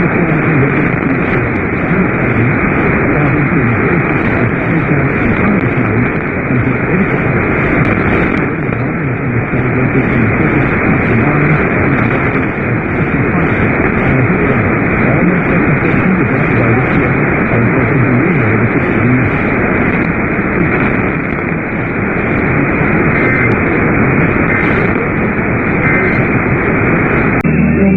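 Steady radio static: a receiver hissing loudly, its sound cut off at the top like a narrow broadcast audio band.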